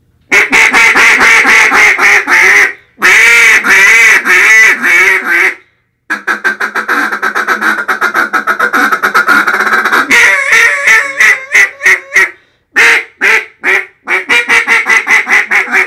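Hand-held duck call blown by mouth in several loud runs of rapid quacks, with short pauses between them. The longest run starts about six seconds in, and a slower series of separate quacks follows. The call is being test-blown after its reed was trimmed and dog-eared, and is now tuned where the caller wants it.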